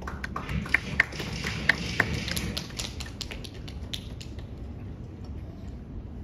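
Irregular sharp taps and clicks, about five a second, over a steady low hum. They fade out after about four and a half seconds, and the hum goes on alone.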